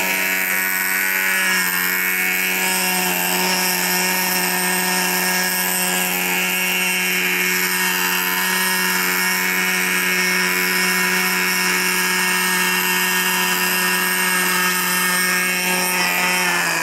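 OS MAX-46FX-H two-stroke glow engine of a Hirobo Lama SA-315B RC helicopter running steadily at hover power, a high buzzing note together with the whir of the rotors.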